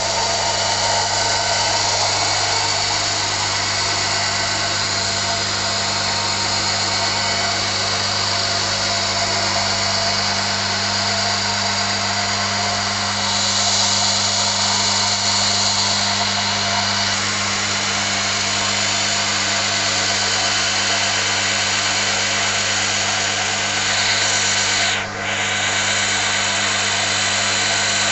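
Four-bucket milking machine's vacuum pump and single-phase electric motor running steadily: a constant hum under a dense hissing whir, dipping briefly near the end.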